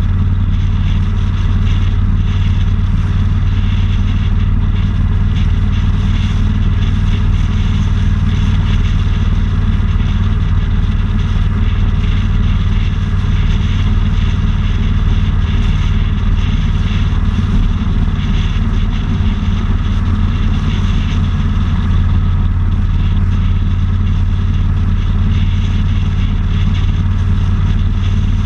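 Motorcycle engine running steadily at cruising speed, a deep even drone with a rush of wind over it.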